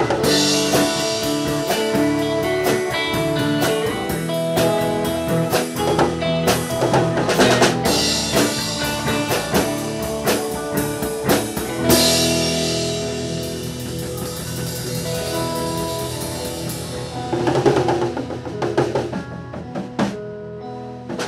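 Background music with drums and guitar and a steady beat; it thins out near the end.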